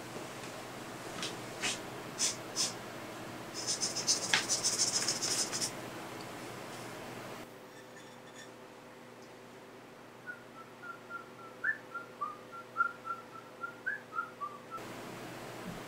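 A person whistling a tune in short, quick notes about ten seconds in, for roughly five seconds. Before that there are a few sharp clicks and a brief jingling rattle.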